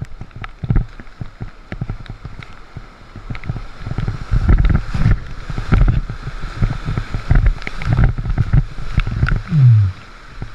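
Whitewater splashing and gurgling around a kayak running river rapids, with irregular knocks and splashes, louder from about four seconds in. A brief sound falling in pitch near the end.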